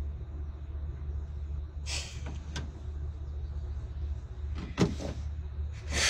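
Phone handling noise: a steady low hum, brief rustles about two seconds in, and a sharp knock about five seconds in.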